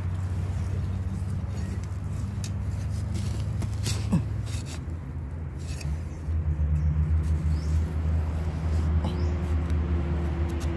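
A steady low mechanical hum, growing louder about six seconds in, with faint scrapes and knocks of a metal digging blade working loose forest soil.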